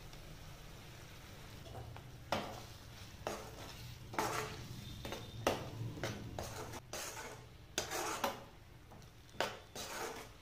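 Metal spoon stirring a thick tomato and onion masala in a non-stick pan, clinking and scraping against the pan at an irregular pace, starting about two seconds in.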